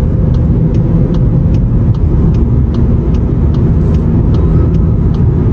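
Volkswagen car heard from inside the cabin, driving steadily at speed in a tunnel: a loud, even road and engine rumble with light regular ticks of the turn signal, about two or three a second. No bearing drone comes from the left rear wheel, whose bearing has been replaced.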